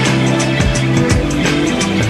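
Background music: a rock track with drums and a steady beat.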